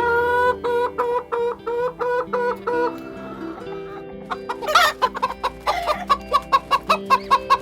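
A bird calling in a run of short, evenly repeated pitched notes for about three seconds, then a harsh squawk about five seconds in and a faster run of short calls near the end, over soft background music.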